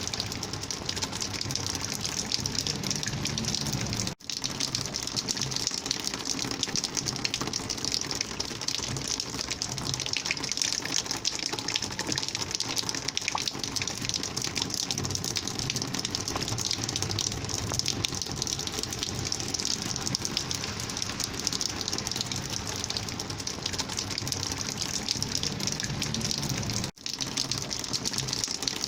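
Rainwater flowing in a steady gushing rush. The sound cuts out briefly twice, about four seconds in and near the end.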